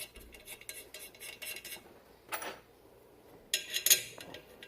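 Small metallic clicks and clinks of bolts being threaded through a brake rotor into a full-floating axle hub, with a louder cluster of clinks about three-quarters of the way through.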